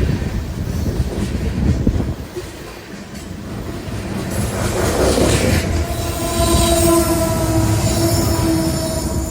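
Freight train rolling slowly past, its wheels squealing on the rails; the steady high squeal sets in about two-thirds of the way through. Heavy wind buffets the microphone throughout, giving a loud, uneven rumble.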